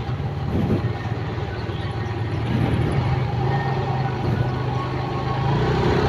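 Motorcycle engine running steadily in a low hum while riding through street traffic, with the noise of surrounding vehicles mixed in.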